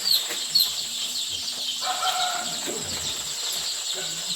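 A crowd of day-old Bovans Brown layer chicks peeping continuously. Loud, separate downward-sliding peeps stand out in the first second over a dense high chorus of chirping.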